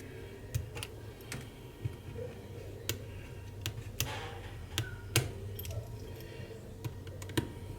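Light, irregular clicks and taps of small repair tools working inside an iPhone 11 Pro, over a faint low steady hum.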